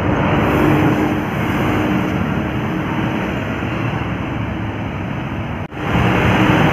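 A heavy bus engine and road noise as a bus passes on the climb, steady and loud with no horn. The sound cuts out for an instant near the end.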